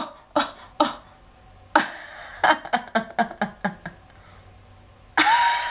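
A woman's laughter: a few short clipped 'oh' laughs at the start, then a genuine burst of rapid ha-ha pulses, about six a second, lasting around two seconds. Near the end comes a loud, high, breathy squeal of laughter.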